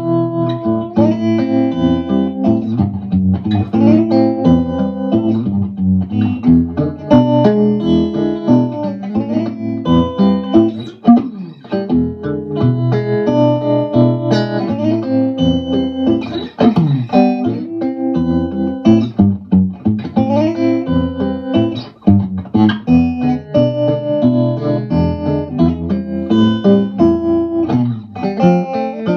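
Electric guitar played through a Vox AC15 valve combo amp: a continuous run of picked notes and chords.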